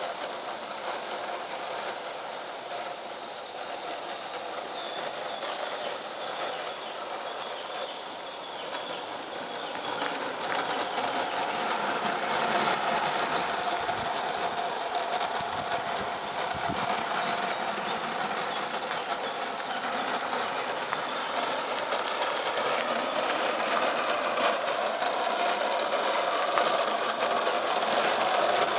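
Gas-fired 45mm gauge live steam model locomotive, a Merlin Monarch 0-4-0 saddle tank, running along garden railway track with a short train. It grows steadily louder as it draws near.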